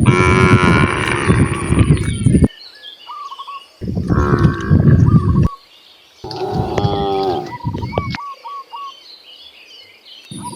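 Cattle mooing: three loud, drawn-out moos of about two seconds each, separated by short pauses.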